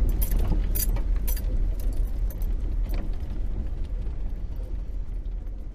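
Vehicle driving slowly over a bumpy dirt road, heard from inside the cab: a steady low engine and road rumble with rattles and clicks from loose items. It grows quieter toward the end.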